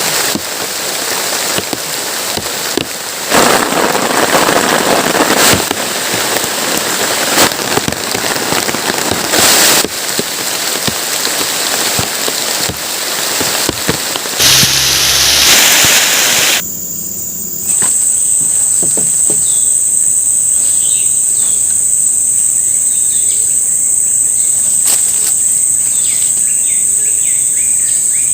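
Heavy rain falling, with many sharp drop hits. About two-thirds of the way through it cuts off abruptly to forest sound: a steady high-pitched insect drone with faint bird chirps.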